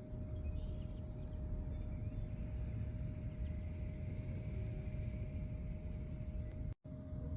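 Outdoor ambience: a steady low rumble with a faint steady hum, and small birds giving short, high chirps about five times. The sound drops out briefly near the end.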